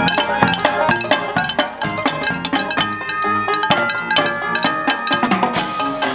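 Children beating a frying pan with wooden sticks in a fast rhythm, over upbeat music with a busy percussion beat.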